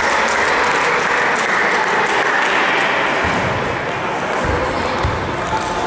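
Table tennis balls clicking off bats and tabletops in quick irregular taps, with several rallies overlapping, over a steady hum of voices in a large, echoing sports hall.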